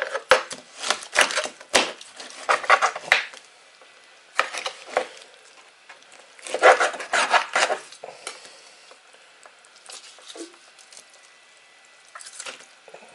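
Kitchen knife cutting through a chum salmon's head on a cutting board: crunching through bone and cartilage in several bursts, with a few sharp knocks of the blade on the board, and pauses between.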